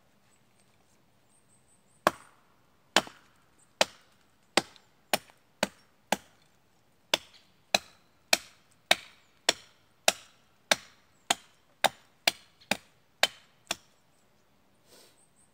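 Hatchet chopping a branch laid across a fallen birch trunk: about twenty sharp strikes, just under two a second, starting about two seconds in.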